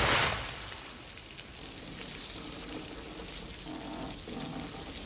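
Cartoon sound effects in a flooded room: a loud splash that dies away in the first half-second, then a steady wash of water.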